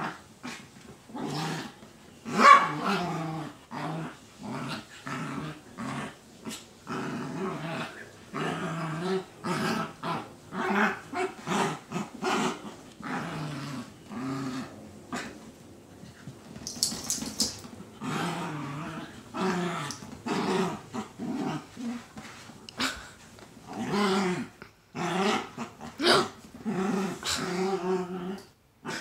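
Two small dogs growling at each other while play-fighting, a run of short growls one after another with the odd yip.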